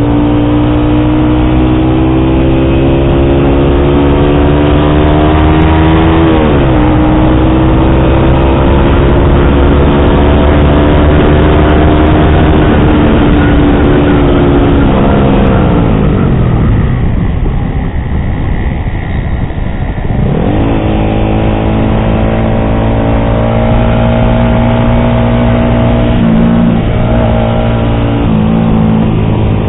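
Yamaha R15 V3's single-cylinder engine running through an SC Project exhaust with a dB killer, under way: the revs climb steadily, drop sharply with an upshift about six seconds in, then climb again. Around halfway the revs fall away as it slows, and after a few seconds they pick up again and hold, with two brief dips in pitch near the end.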